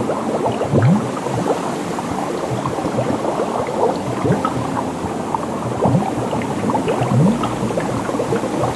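Water bubbling and splashing: a dense, busy noise full of short bubbly blips.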